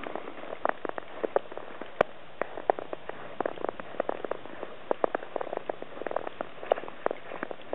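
Soft, irregular crackles and ticks, several a second, over a steady hiss: the sounds of a handheld camera out walking in falling snow. One sharper click about two seconds in.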